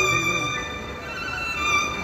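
Music led by a violin playing long held notes.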